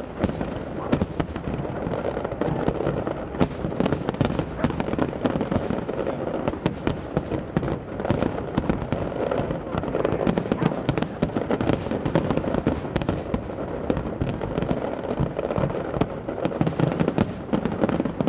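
Fireworks display: a dense, continuous barrage of bangs and crackles, many reports overlapping with no pause.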